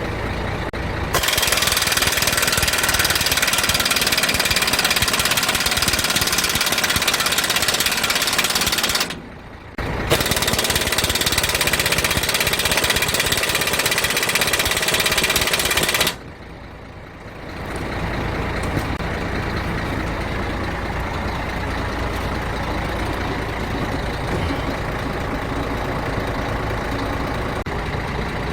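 Two long stretches of loud, steady rushing noise with a short break between them, then a heavy diesel engine running steadily at idle.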